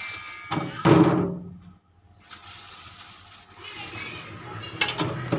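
Water splashing and running, with a loud surge about a second in, as when washing things in a sink. A few sharp knocks come near the end.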